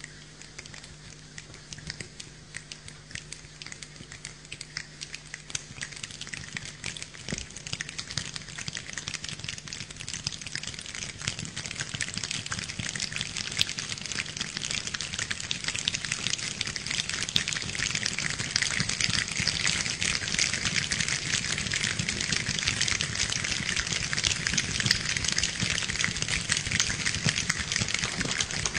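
A choir imitating rain with their hands: a dense pattering of many small clicks and rubs that grows steadily louder, like a shower building up.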